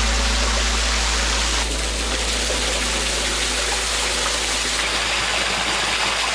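Small waterfall pouring and splashing steadily onto rock and onto a person standing under it, with a steady deep hum underneath.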